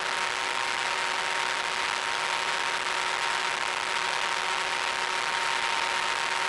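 Electric motor and propeller of an FPV model plane running at steady cruise power: an even hiss with a constant whine that holds at one pitch throughout.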